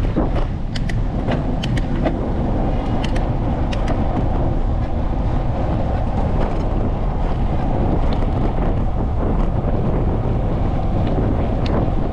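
Steady rushing wind on the camera microphone and tyre noise from a bicycle rolling along a paved path, with a few light clicks and rattles in the first few seconds.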